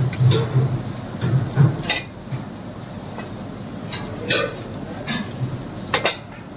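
Kitchen clatter of dishes and metal utensils: about four sharp clinks, a second or two apart, with low thumps in the first two seconds.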